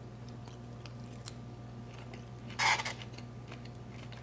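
A person chewing a mouthful of food quietly, with small clicks of a plastic fork against a styrofoam takeout container. There is one short louder hiss about two and a half seconds in, over a steady low hum.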